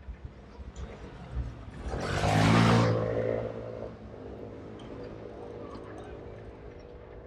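A motor vehicle passes close by. Its engine sound swells to a peak about two and a half seconds in and fades within a second or so, over a low wind rumble on the moving bicycle's microphone. A fainter steady engine hum carries on afterwards.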